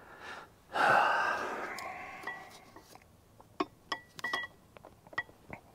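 A heavy breath of effort about a second in, then a scatter of sharp metal-on-metal clinks with a short ring as a ratchet and socket work against a bolt and the flywheel.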